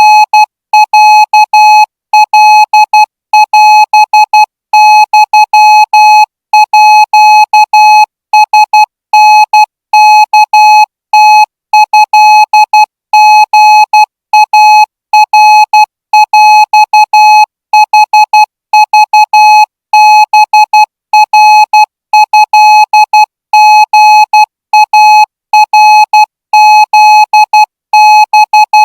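Morse code sent as a single steady beep, keyed on and off in dots and dashes in short groups with brief gaps between them: a Morse receiving test.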